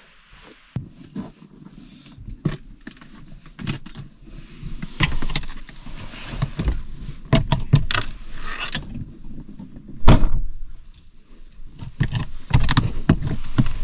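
Knocks, clunks and shuffling of someone climbing into a small camper and moving about its cabin, handling the entrance floor board and the seats. One loud thump comes about ten seconds in.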